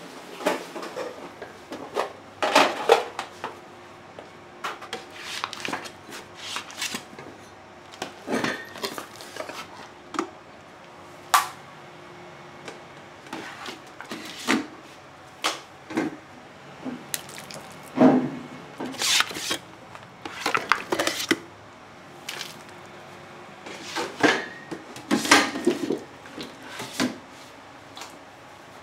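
Irregular clanks and knocks of metal pots, containers and utensils being handled, some single and some in quick clusters, over a faint steady hum.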